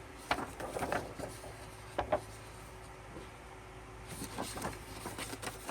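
Album inclusions of paper and card being handled: light rustling with a few soft taps, the sharpest about a third of a second and two seconds in.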